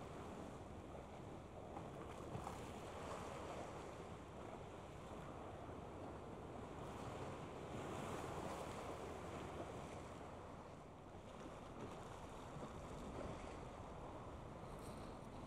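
Steady outdoor wind and water noise, swelling slightly about halfway through, with no distinct engine or horn tone standing out.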